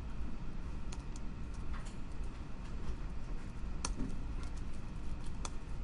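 Computer keyboard typing: scattered, irregular key taps, with a couple of sharper clicks in the second half.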